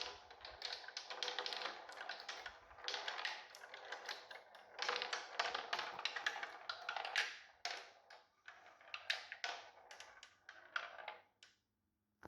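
Marbles rolling and clattering down a marble run track, a dense stream of quick clicks that thins out and stops near the end, with one last sharp click.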